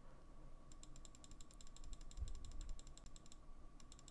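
Rapid, evenly spaced clicking of a computer mouse's scroll wheel turning through its notches, pausing briefly near the end before starting again, over a faint steady electronic whine.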